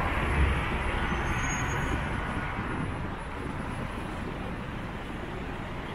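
Road traffic noise on a city street: the rush of a passing vehicle, fading slowly as it moves away.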